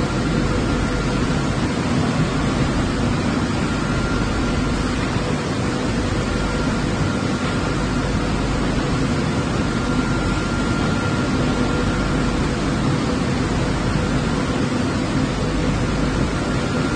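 Automatic pallet washing machine running: a steady hiss with a faint steady hum underneath.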